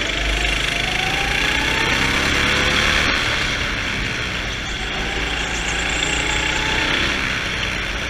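Go-kart engine running under throttle, heard from onboard, its pitch rising twice as the kart accelerates out of corners.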